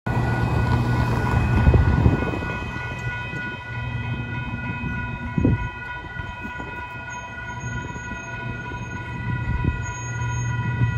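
Railroad grade crossing warning bell sounding steadily while the gates are down, over a low rumble. A vehicle passes loudly in the first two seconds, and there is a single thump about halfway through.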